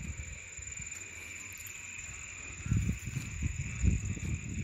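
Steady hiss of heavy rain at night, with a constant high insect chorus under it. From about three seconds in come irregular low thuds from the phone being handled while walking on the wet ground.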